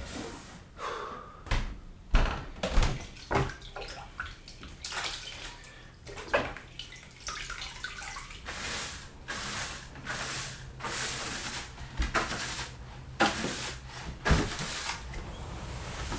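A cleaning cloth being rinsed and wrung out in a plastic bucket of water: irregular splashing and water running back into the bucket, with a few knocks.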